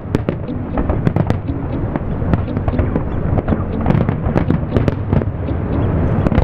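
Fireworks display: a dense, continuous run of bangs and crackles from aerial shells bursting, over a steady low rumble.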